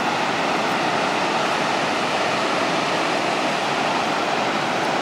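Horseshoe Falls at Niagara Falls: the steady, unbroken rush of the great waterfall and the churning water below it.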